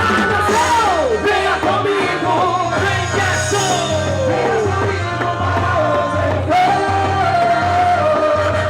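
Loud quadrilha junina music with group singing and sliding shouts over a steady repeating bass line.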